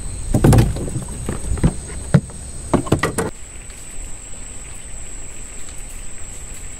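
A series of sharp knocks and thumps on a wooden fishing boat, about seven in the first three seconds, as gear is handled and someone shifts about. The knocks then stop, leaving a steady background with a constant high-pitched whine, likely night insects.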